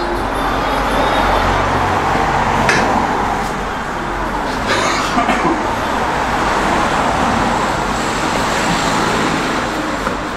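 Steady running noise from a stationary car, with a low hum underneath and a couple of short knocks about three and five seconds in.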